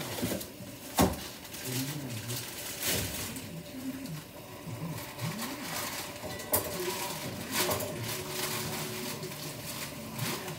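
Kitchen handling noises: a sharp knock about a second in, the loudest sound, and a lighter click later, over low, muffled talk.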